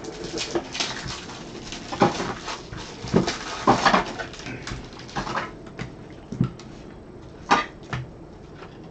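Trading cards and their packaging being handled: irregular sharp clicks, taps and rustles as packs are opened and cards are sorted through.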